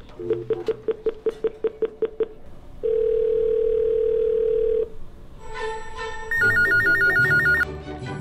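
Cisco conference speakerphone's keypad beeping as a number is dialled, a quick run of about a dozen beeps, followed by a steady ringback tone for about two seconds. Near the end an electronic phone ring warbles fast between two notes as the called phone rings.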